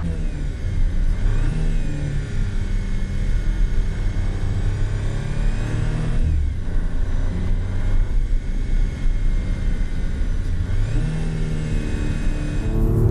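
2018 Audi RS4 Avant's 2.9-litre twin-turbo V6 engine and exhaust running under way, its pitch rising and falling with the throttle. There is a short dip about six seconds in and a fresh climb near the end.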